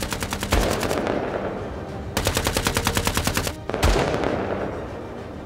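Battle sound effect of machine-gun fire: two rapid bursts of about ten rounds a second, each lasting about a second and a half, each followed by a deep thud.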